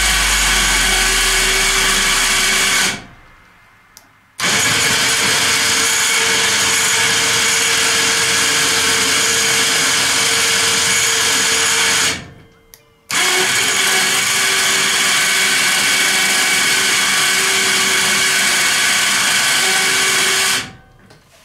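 Cheap Harbor Freight electric winch's motor and gear train running under its remote control: a loud, steady whine in three runs, cutting off briefly about three seconds in and again about twelve seconds in, then stopping near the end.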